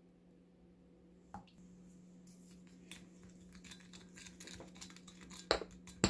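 Kitchen prep handling: light clicks and taps of utensils and containers, with two sharper knocks near the end. A steady low hum comes on about a second in.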